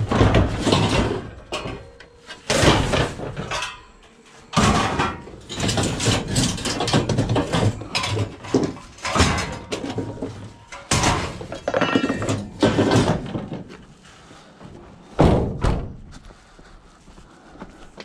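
Pieces of scrap steel (a rusty pipe, slotted shelving strips) being handled and stacked in the back of a van: repeated clanking and knocking of metal on metal and on the van floor. About fifteen seconds in come two heavy thuds close together.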